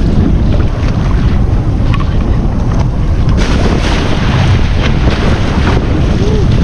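Wind buffeting the microphone over choppy sea washing against a boat's hull, with a burst of sea spray hitting about three and a half seconds in.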